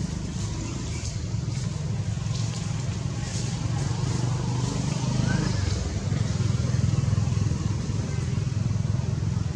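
A motor engine running steadily, a low hum that swells slightly around the middle.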